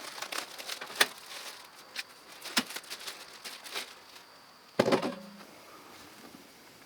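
A cardboard box being opened and unpacked: rustling and crackling with scattered sharp clicks and knocks, the loudest knock about five seconds in.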